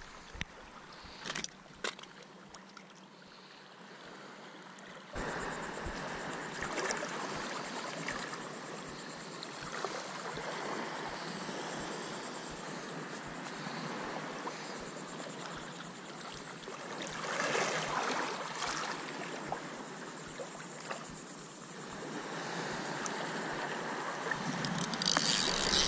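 Water lapping and trickling against jetty rocks, getting louder about five seconds in. A few clicks and rustles of handling close to the microphone come near the start and again about two-thirds through.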